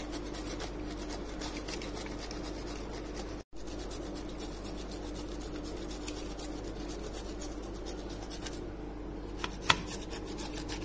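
Green bell pepper being grated on a stainless steel box grater: a steady rasping of repeated strokes, broken for an instant about three and a half seconds in. A few sharp knocks near the end.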